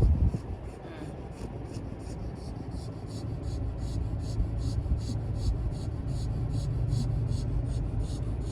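American Bully dog snoring loudly in her sleep: a rapid, regular rasping over a steady low hum.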